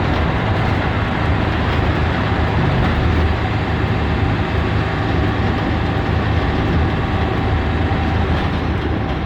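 Blue Bird school bus under way, heard from inside: a steady low engine drone with road and rattle noise.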